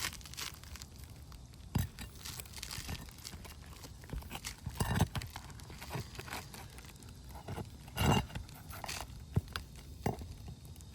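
Roof shingles being handled and pried up: irregular scraping and crunching with a few sharper knocks, the loudest about two, five and eight seconds in.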